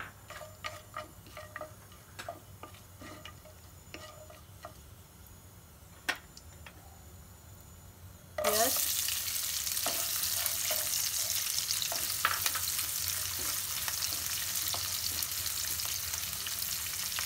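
Whole spices frying in hot oil in a non-stick kadai, with sparse light ticks and pops. About eight seconds in, chopped onions go into the oil and it sizzles loudly and steadily while a spatula stirs them.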